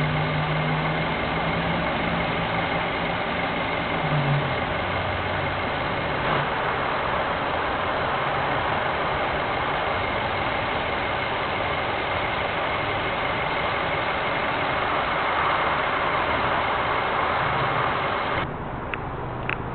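Nissan Versa's 1.6-litre four-cylinder engine idling steadily, with a thin, steady high tone over the running noise. The sound drops off sharply near the end.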